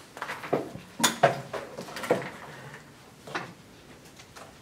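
Classroom chairs knocking and scraping, with shuffling footsteps, as several people get up from a table and walk off. A quick series of knocks, loudest a little over a second in, dying away after about three and a half seconds.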